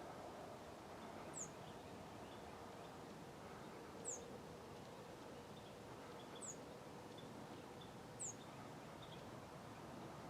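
A small bird giving a short, very high, thin down-slurred call note four times, a couple of seconds apart, with a few fainter chips in between, over a quiet outdoor hiss.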